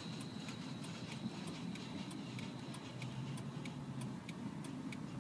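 A car's flasher ticks steadily inside the cabin, a little over two ticks a second, over a low hum of engine and road.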